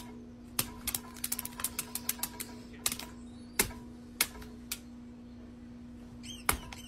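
Irregular sharp clicks and taps, like hands handling small hard objects, over a steady low hum.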